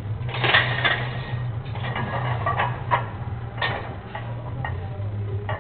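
Irregular metallic clicks and clanks from a heavily loaded barbell and its plates during fast squat reps, the loudest about half a second in. A steady low hum runs underneath.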